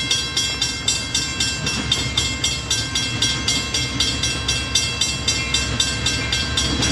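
Railroad grade-crossing bell ringing evenly at about three to four strikes a second, over the low rumble of the approaching train.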